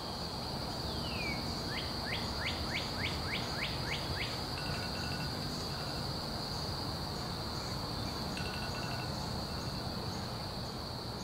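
Morning outdoor ambience: a steady high insect trill runs throughout while a bird sings a rapid series of about eight downward-sweeping notes in the first few seconds, with a few short chirps later on.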